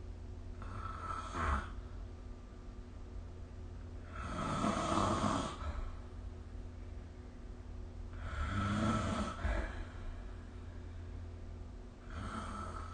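Snoring in sleep: four snores about four seconds apart, the last one cut off at the end, over a steady low hum.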